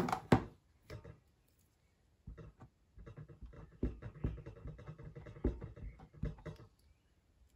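Clear acrylic stamp block being tapped and pressed repeatedly onto a Stampin' Up! ink pad to ink a clear stamp: a run of soft taps and rubbing from about three seconds in. Sharp plastic clicks at the start and about a second in from handling the ink pad case.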